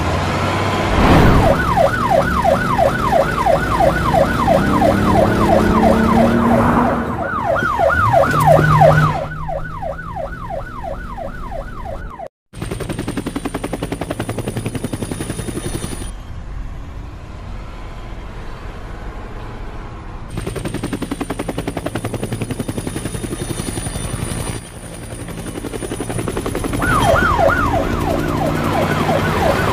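A fast-warbling siren, wailing up and down several times a second, cuts off about twelve seconds in. A helicopter's rotor then beats steadily, with a faint high whine, and the warbling siren comes back near the end.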